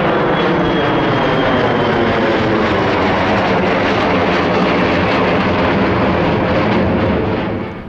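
Jet airliner engines at takeoff power as the aircraft climbs out past, a loud, steady jet noise with many close whining tones. It drops away sharply near the end.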